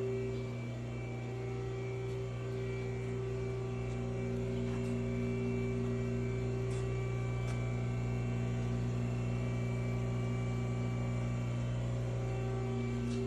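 Haas ST-20 CNC lathe running, giving a steady electric motor hum made of several fixed tones, with a few faint ticks.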